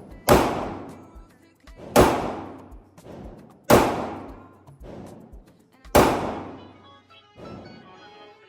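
Four gunshots, roughly two seconds apart, each with a long echoing tail, with fainter shots in between. Background music comes in near the end.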